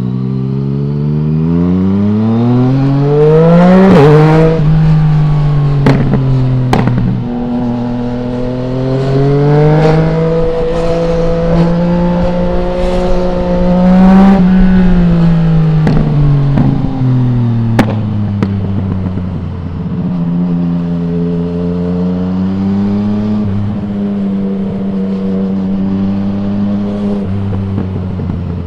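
2020 Yamaha MT-09's three-cylinder engine through an Akrapovic full-system exhaust with no dB killer, under way. The revs climb, drop at a gear change about four seconds in, and climb again. It then holds steady, and the revs fall away with a few sharp cracks before it settles to a steady cruise.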